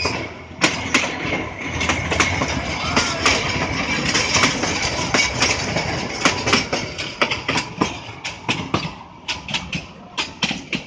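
Matheran narrow-gauge toy train running on the rails: a steady rumble with many irregular sharp clicks and knocks from the wheels and carriages. It grows quieter over the last few seconds.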